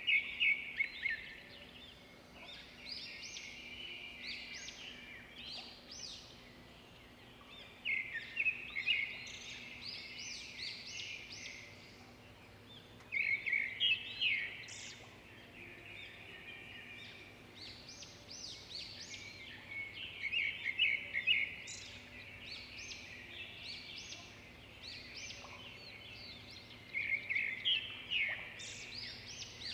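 Birds chirping in repeated bursts of quick high chirps, one burst every five to seven seconds, over a faint steady low hum.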